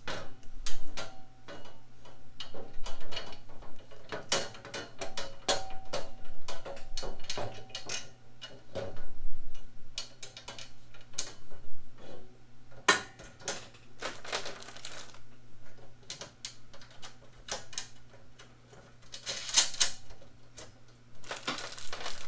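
Irregular clinks, knocks and taps of the sheet-steel parts and loose bolts of a US General 5-drawer tool cart being handled and fitted together, some knocks ringing briefly. Near the end a plastic bag of nuts and bolts rustles as a hand digs into it, over a faint steady low hum.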